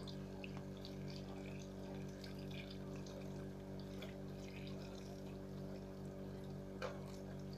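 Kitchen tap running steadily into a stainless steel sink as a foam squishy is held and turned under the stream to soak it, over a steady low hum.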